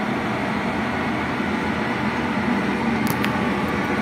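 Steady whirring rush with a low hum, like a motor or fan running, with a few faint light clicks about three seconds in.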